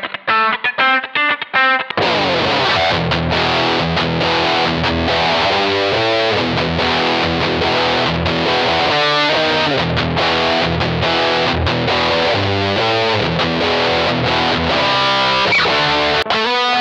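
Sqoe SEST1100 electric guitar played through overdrive on its Alnico V bridge humbucker split to single coil, in short choppy notes. About two seconds in it changes to the full bridge humbucker with heavy distortion, playing a dense riff.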